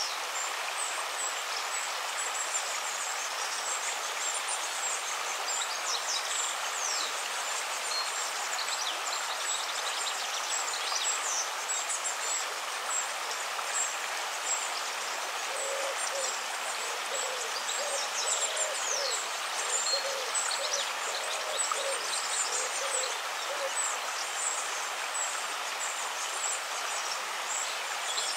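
Outdoor nature ambience: a steady rushing hiss with high bird chirps throughout, and a run of repeated low hooting calls from about halfway to near the end.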